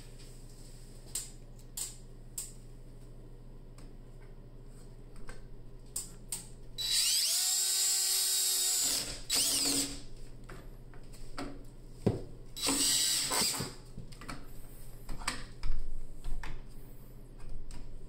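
Cordless DeWalt drill drilling into a door through a lock-installation jig, running in three short bursts: a spin-up lasting about two seconds, then a half-second burst, then a second-long run. Clicks and knocks of the jig and drill being handled fall before and after the drilling, the loudest knock near the end.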